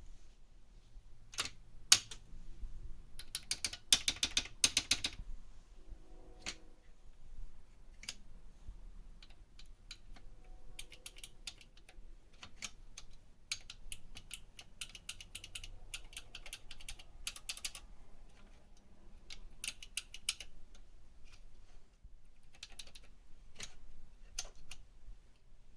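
Key switches of an HP 15254A keyboard being pressed and released, sharp clicks coming in irregular clusters with quick runs of several presses and single clicks between, as the keys are tried for locking.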